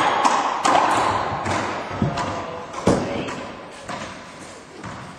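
Racquetball rally: a quick series of sharp hits of racquet on ball and ball off the court walls and floor, each ringing briefly in the enclosed court, the loudest about three seconds in.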